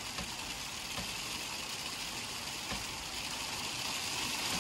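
Rain falling on a van's windshield, heard from inside the cab: a steady hiss with scattered light taps of single drops.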